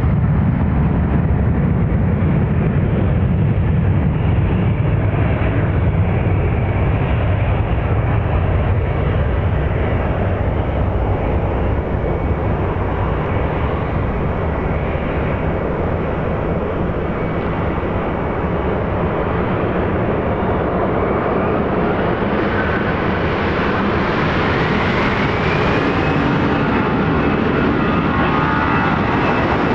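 Airbus A319's CFM56-5B5/P turbofan engines running with a steady rumble, then spooling up to takeoff thrust. A rising whine climbs over about four seconds late on and then holds steady.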